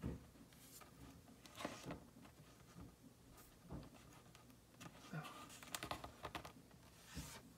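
Faint, scattered clicks and taps of plastic action figures being handled and posed on a tabletop.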